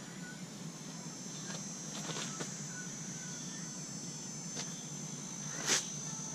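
Insects droning steadily at a high pitch, with a few faint clicks scattered through and one sharper tick near the end.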